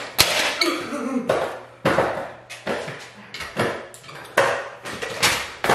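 Aluminium Razor kick scooter clattering on a concrete floor as the rider hops and lands tricks: about ten sharp metallic knocks and rattles at irregular intervals.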